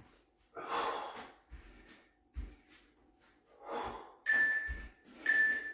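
A person breathing hard in sharp exhalations during a bodyweight plank exercise, with a few dull thuds on the floor. About four seconds in, an interval timer gives two short high beeps a second apart, counting down the last seconds of the work interval.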